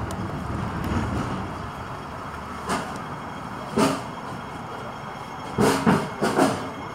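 Hong Kong double-decker electric tram rumbling as it slows to a halt, the rumble fading over the first couple of seconds. After that come several short, sharp knocks: one at a time twice, then a quick cluster near the end.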